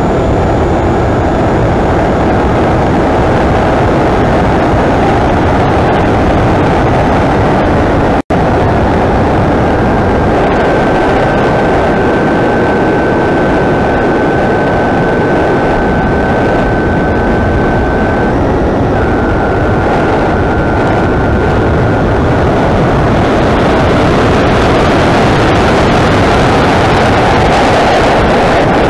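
Onboard sound of an AR Pro 1000 flying wing in flight: loud, steady wind rush over the airframe and microphone, with the thin whine of its electric motor and propeller, which steps slightly lower in pitch a little after the middle. The sound cuts out for an instant about eight seconds in.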